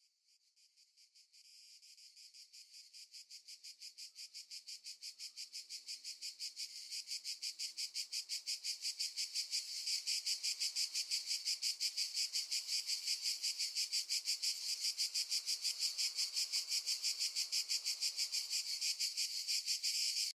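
Crickets chirping in a rapid, even pulse that fades in from silence, grows louder over the first half, then holds steady and cuts off suddenly at the end.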